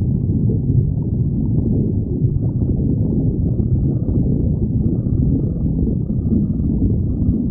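A person's stomach growling: a steady low rumble with no pauses.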